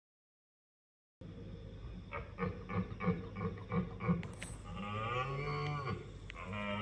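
Red stag roaring in the rut: about a second of silence, then a run of about six short grunts, then two long, drawn-out roars that rise and fall in pitch.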